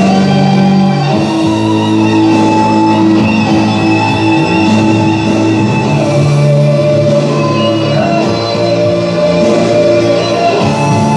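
Rock karaoke backing track with guitar, held notes over a steady band accompaniment.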